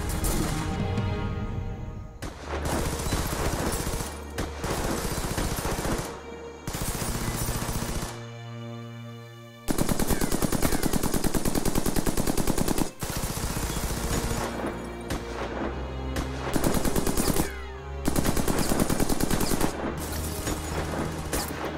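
Automatic rifle fire in long rapid bursts from a staged firefight, with short breaks between bursts. A dramatic music score runs underneath, and its held notes stand alone for about a second and a half a little past the middle, when the shooting pauses.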